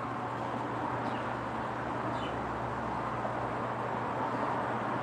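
Steady outdoor background noise, like distant traffic, with a few faint bird chirps about one and two seconds in.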